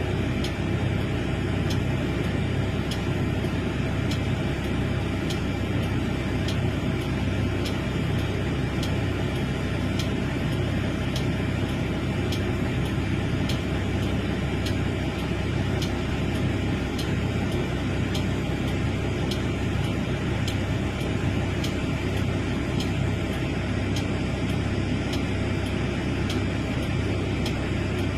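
Large excavator's diesel engine running steadily, with a low even throb and faint regular ticks a little more than once a second.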